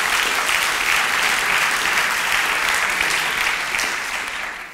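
Theatre audience applauding steadily, the clapping dying away near the end.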